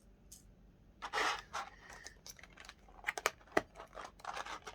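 Slime being mixed and kneaded by hand: a soft rustle about a second in, then a run of small sticky clicks and crackles.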